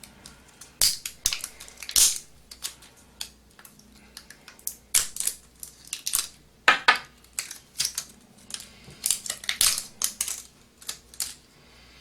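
Irregular plastic clicks and rattles of batteries being fitted into a digital postal scale's battery compartment.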